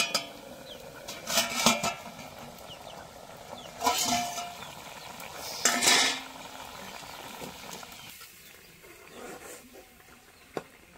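Steel lid and ladle clattering against a steel kadai in three bursts, one with a short metallic ring, as the lid is handled and lifted off. Softer scraping of the ladle stirring the curry follows near the end.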